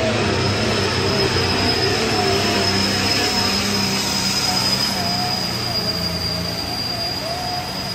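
Turbocharged diesel engine of a 4.1 Limited Pro Stock pulling tractor running flat out under load as it drags the weight-transfer sled, with a steady high turbocharger whistle over the engine note.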